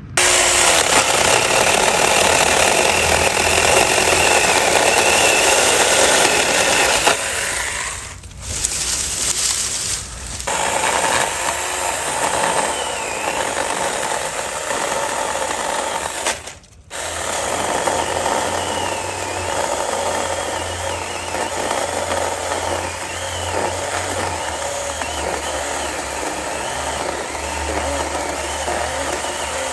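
Small cordless electric mini chainsaw running and cutting wood, its motor whine wavering in pitch as the chain bites and eases. It drops off briefly twice about eight and ten seconds in and cuts out for a moment about halfway, then runs on.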